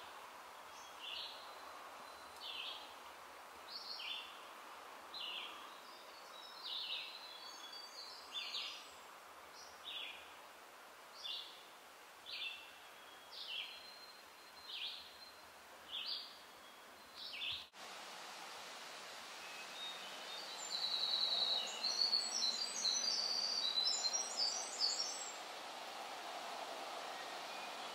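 Forest songbirds: one bird repeats a short, high call a little over a second apart, then, after a sudden cut, a busier, higher twittering song runs for a few seconds as the loudest part, over a faint steady outdoor hiss.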